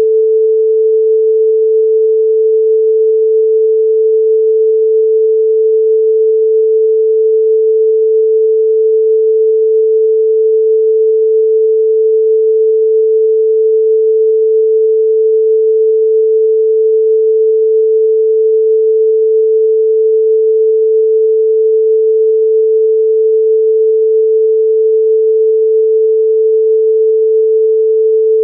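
Broadcast line-up test tone: one loud, steady pure tone a little below 500 Hz, unchanging in pitch and level.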